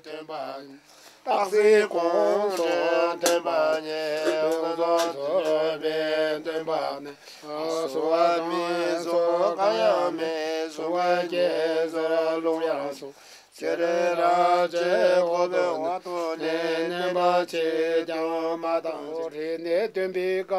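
A voice chanting a Bon ritual recitation in a steady, sing-song line, pausing briefly for breath about seven seconds in and again around thirteen seconds in.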